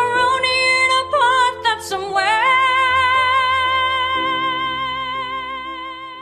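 A woman singing: a few quick ornamented notes, then one long high note held with a wide vibrato over sustained accompaniment chords, fading out near the end.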